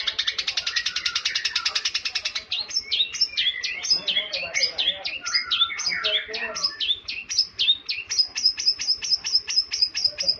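Songbird singing a long, varied song: a rapid trill first, then a mix of sweeping notes, ending in a quick run of repeated high notes, about five a second.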